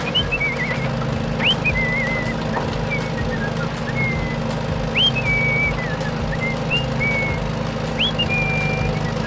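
Repeated whistle-like calls, each a quick upward sweep followed by a short wavering tone, coming about every second and a half over a steady low hum.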